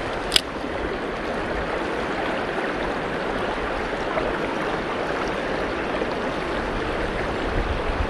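Mountain stream water flowing steadily, with a single sharp click about half a second in.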